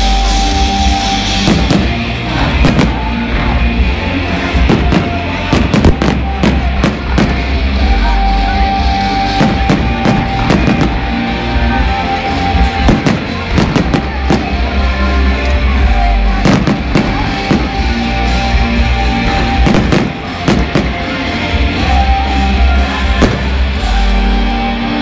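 Loud rock music with heavy bass plays under a constant run of sharp firework bangs and crackles from a fireworks display.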